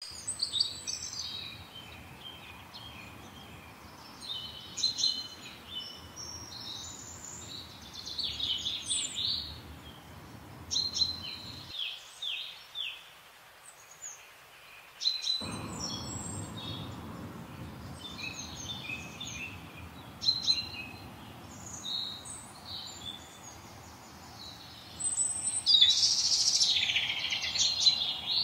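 Small songbirds singing in short, repeated chirping phrases, the loudest stretch near the end. Under them runs a low steady background rumble that drops away for a few seconds midway.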